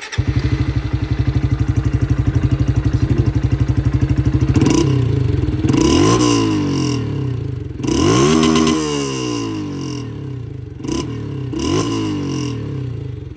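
2024 Honda CG 160 Fan's single-cylinder engine running through an aftermarket popping ('estralador') exhaust. It idles with an even, heavy beat for about four seconds, then is revved about five times, each rev rising and falling back to idle, the longest one around the middle.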